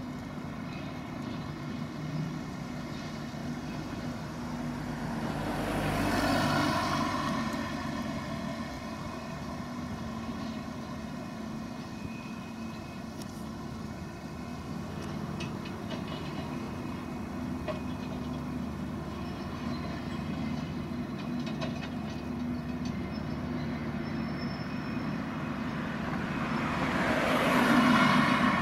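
Diesel engine of a Volvo EC250E crawler excavator running steadily while it works, with a few faint knocks. A passing car swells up and fades away twice, about six seconds in and near the end.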